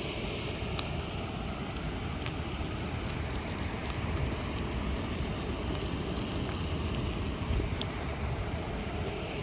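A ribeye sizzling and crackling in butter and garlic in a hot cast iron skillet, over the steady rush of a waterfall; the sizzle fades near the end.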